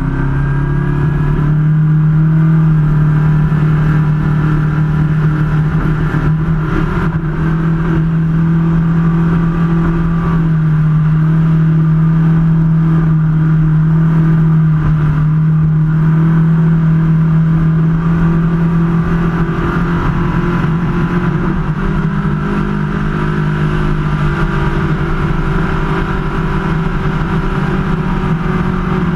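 Superclass ski race boat's engine running flat out at racing speed, a loud steady drone. Its pitch steps up just after the start and holds, wavering briefly about two-thirds of the way through.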